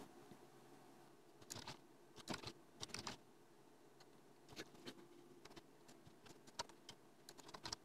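Faint, irregular clicks of a computer keyboard and mouse, several coming in quick pairs.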